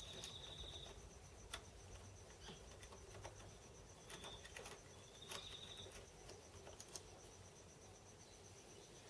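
Very quiet: scattered light clicks and taps of small metal parts being handled, with a cricket chirping in three short trills.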